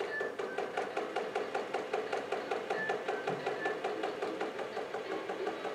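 Battery-powered ball-popping toy dinosaur running on its softest setting: a steady mechanical whir that pulses about six times a second, with a few short high notes over it.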